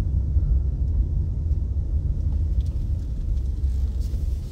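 Steady low rumble of a car rolling slowly along a paved road, heard from inside the cabin.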